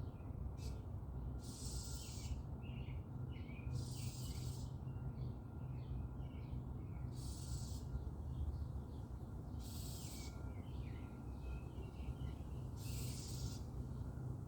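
Small birds chirping in a garden, short calls scattered throughout, over a steady low rumble. A high hiss swells up for about a second every two to three seconds.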